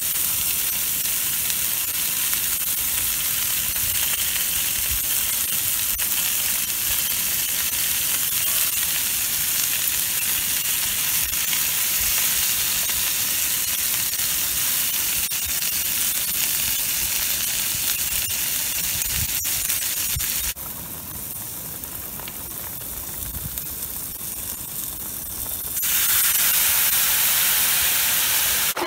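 Chicken and thick green onion pieces sizzling in a cast-iron skillet. About two-thirds of the way through the sizzle drops quieter, then near the end it comes back as a louder hiss while steam billows up from the pan.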